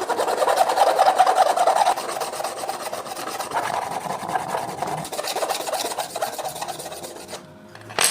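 Harsh rasping scrape of abrasive work on a workpiece, loudest in the first two seconds, then steadier before it stops abruptly near the end. A single sharp click follows just at the end.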